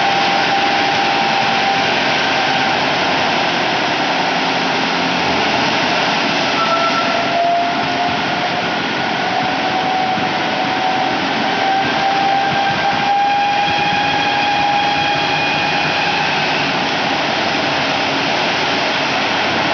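Sugar mill cane carrier and cane-crushing machinery running steadily, a loud continuous mechanical din with faint whining tones that drift slowly in pitch.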